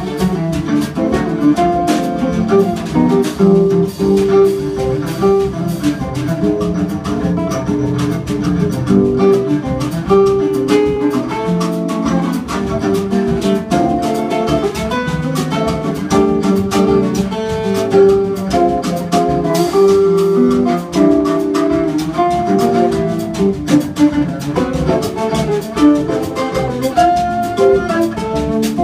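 Live instrumental samba played by a trio: cello, nylon-string classical guitar and drum kit together.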